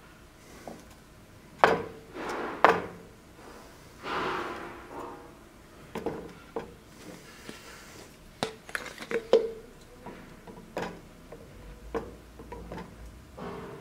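A steel dagger and a small wooden handle piece being handled on a workbench: scattered sharp knocks and clicks, the two loudest about two and three seconds in, with a brief rubbing sound about four seconds in.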